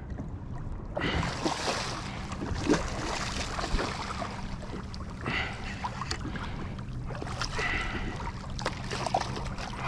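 Water splashing as a hooked fish thrashes at the surface beside a kayak, with wind on the microphone and a steady low hum underneath.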